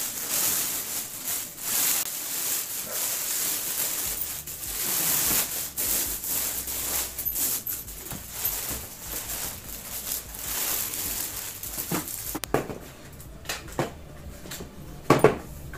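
Thin polythene bag crinkling and rustling as it is pulled off stacked plastic drawer parts, for about twelve seconds. Then it goes quieter, with a few sharp knocks of hard plastic parts being handled, the loudest near the end.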